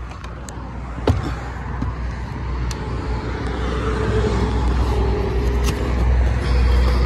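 Road traffic rumbling, growing steadily louder, with a steady engine hum joining about halfway through. A sharp knock sounds about a second in, with a few lighter clicks.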